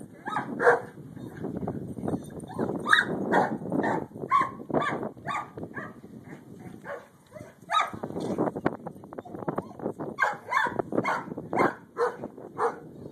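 A dog barking repeatedly in runs of quick barks, about two a second, with short breaks between the runs.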